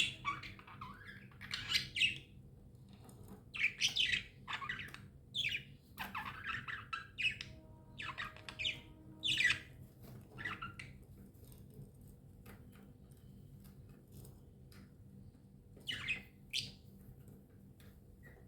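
Pet budgerigars chirping: a busy run of short, high chirps for about the first ten seconds, then only scattered calls, with two clear ones near the end.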